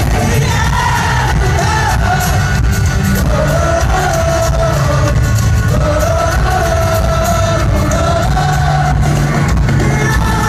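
Live rock band playing loud with a lead vocal singing long held notes over heavy bass and drums, heard from among the crowd in a large hall.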